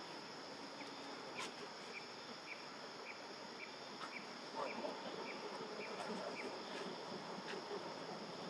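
Insects buzzing steadily and high-pitched, with a short chirp repeating about twice a second for several seconds.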